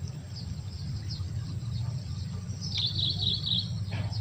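A bird calling outdoors: a quick, rapid chirping trill from about two and a half seconds in, lasting about a second, over fainter scattered high chirps and a steady low rumble.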